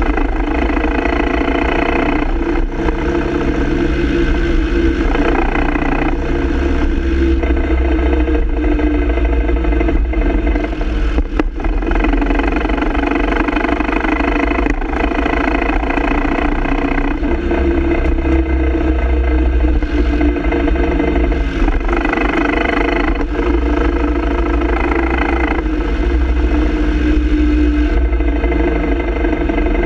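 Land Rover Defender TD5's five-cylinder turbodiesel running steadily, with a clatter from the drivetrain that the owner puts down to a rattling double cardan joint on the propshaft.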